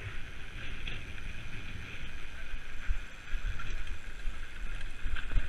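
Wind rumbling on the microphone over the steady rolling noise of a mountain bike on a grassy dirt track, with irregular low bumps from the rough ground.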